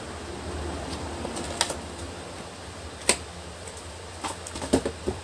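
Cardboard box being handled and worked: scattered sharp clicks and knocks, the loudest about three seconds in and a quick cluster near the end. An electric fan hums steadily underneath.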